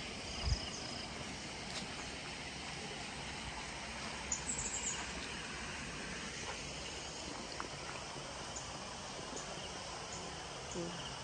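Steady outdoor background of insects chirping over the rush of a flooded canal. There is a dull thump about half a second in and a few short high chirps about four seconds in.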